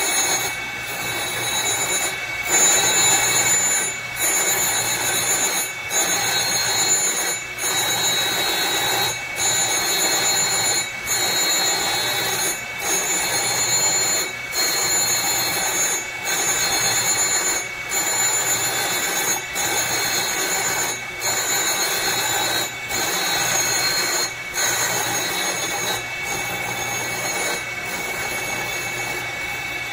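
Surface grinder's wheel grinding an aluminum plate, lubricated with WD-40, over a steady high spindle whine. The grinding breaks off in a short dip about every 1.7 s as the reciprocating table carries the work past the wheel and reverses. Near the end the grinding dies down, leaving mostly the steady whine.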